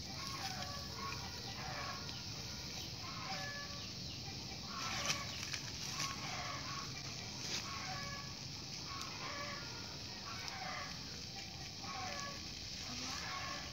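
Chickens clucking in short, repeated calls over a steady background hiss, with a few sharp clicks near the middle.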